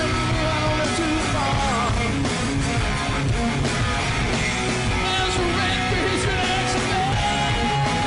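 Live hard rock band playing: electric guitar, bass guitar and a drum kit, with a man singing.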